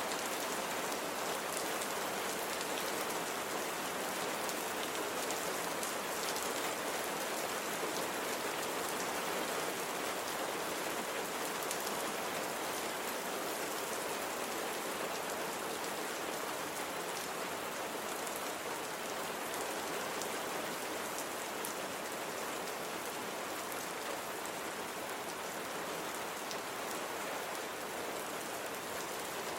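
Steady rain falling, a dense, even patter of drops that keeps up throughout.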